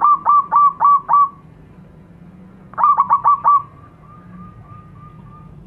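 Zebra dove (perkutut) cooing: a quick run of short, clipped notes, then a second run a couple of seconds later that trails off into a string of fainter notes.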